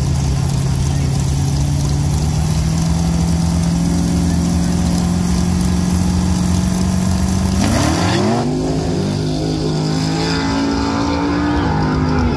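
Fox-body Mustang drag car's engine held at steady revs on the starting line, its pitch creeping slightly higher. Then, about eight seconds in, it launches and accelerates hard, the pitch climbing again through the gear changes.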